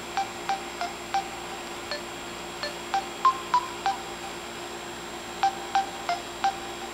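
Samsung Behold T919 touchscreen dialpad playing a short key tone for each digit tapped in, the beeps changing pitch from key to key. About ten come in quick succession, then a pause, then four more near the end.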